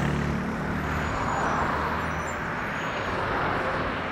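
Boeing 747-400F jet engines running, heard from afar as a steady rushing roar.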